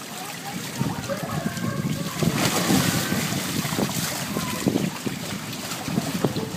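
Muffled rumbling and water sloshing heard from inside an inflatable water-walking ball as it rolls on a pool, with a few soft knocks in the second half.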